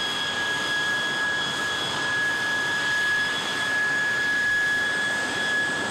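De Havilland Goblin jet engine of a Vampire trainer running at low power on the ground: a steady high whine over an even rushing noise.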